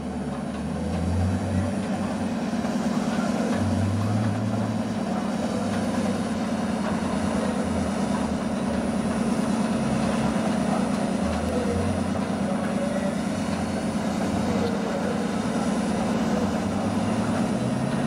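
A steady, low mechanical hum, like a running engine, with a deeper rumble that swells and fades several times.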